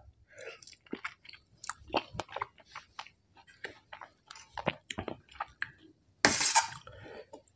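A person chewing food with wet smacking and crunching, in many small irregular clicks. There is one louder, longer noisy stretch about six seconds in.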